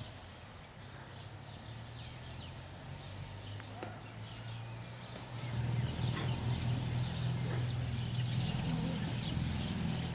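Outdoor ambience: small birds chirping over a low, steady hum that grows louder about halfway through.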